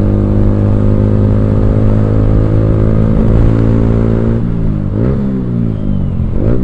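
Yamaha R15M's 155 cc single-cylinder engine running loud through an aftermarket Akrapovic exhaust while riding at speed. It holds a steady note for about four seconds, then its pitch dips and climbs again about three times as the throttle changes.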